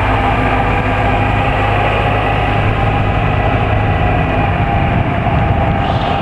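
Golf cart driving along, its motor and running gear giving a steady hum with a few held whining tones over a rush of road and wind noise, heard from on board.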